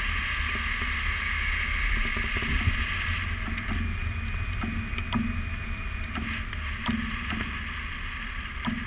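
Airflow rushing over a microphone on a hang glider in flight: a steady wind rumble and hiss, with a few light ticks and a faint thin whistle for a couple of seconds in the middle.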